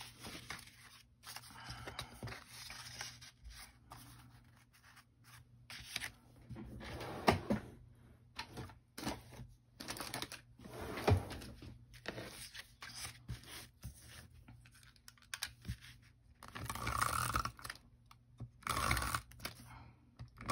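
Paper and cardstock being handled and slid about on a cutting mat: rustling, scraping and light taps. Near the end come two louder rasping strokes of a tape runner laying adhesive on paper.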